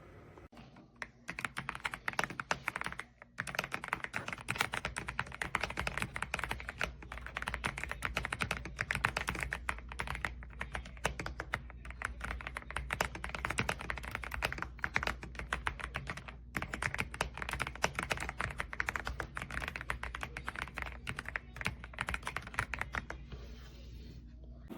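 Fast, continuous typing on an AULA S98 Pro mechanical keyboard, with rapid keystroke clicks and clacks. There is a brief pause about three seconds in, and the typing stops just before the end.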